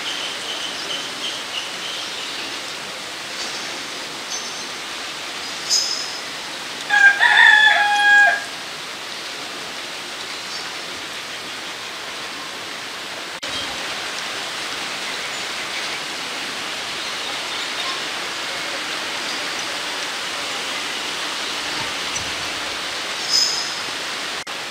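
Outdoor forest ambience: a steady hiss with a few short, high bird chirps. About seven seconds in, a cock crows once, loudly, for about a second and a half.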